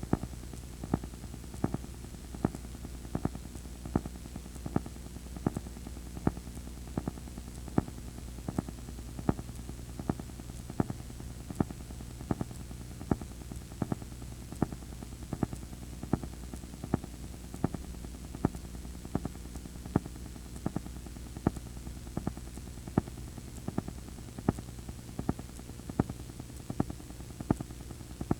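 VHS player playing blank tape past the end of the recording: a steady low hum and faint hiss of tape static, with sharp regular ticks about twice a second.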